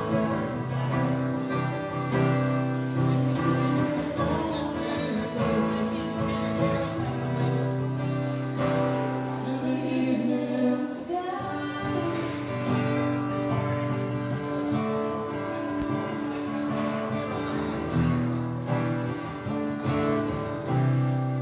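Live band playing an instrumental passage of a slow ballad, with plucked guitar to the fore.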